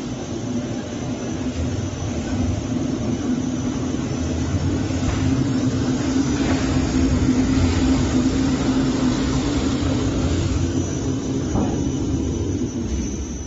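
Chuck spindle rotary veneer lathe running with a log turning in its chucks: a loud, steady industrial hum and rumble that swells toward the middle and dies away near the end.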